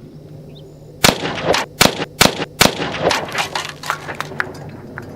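Winchester Wildcat .22 LR semi-automatic rifle fired in a quick string: about five sharp shots roughly 0.4 s apart starting about a second in, followed by a run of fainter cracks and pops.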